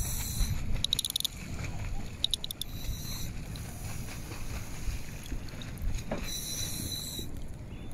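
Breathing through a scuba regulator: several short airy hisses with a fast fluttering rattle in the first few seconds, then a longer hiss near the end, over a steady low rumble.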